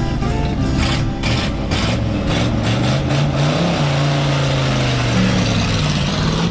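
1980 Chevy pickup's straight-piped 283 small-block V8, with stock manifold, no catalytic converter and no mufflers, running and being revved. The pitch climbs about three and a half seconds in and holds high for a couple of seconds before dropping back.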